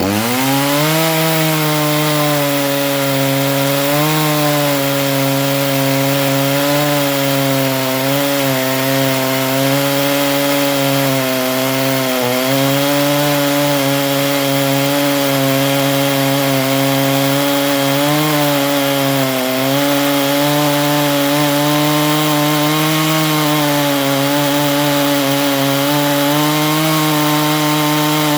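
Neo-tec NH841 two-stroke chainsaw at full throttle cutting through a hard, seasoned log of Australian blackbutt. The engine note rises into the cut at the start, then holds steady under load with small dips in pitch every few seconds as the chain bites.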